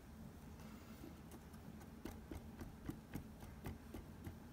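Plastic stirring stick tapping against the side of a plastic beaker of liquid as it is stirred: light clicks, about three to four a second, starting about a second in.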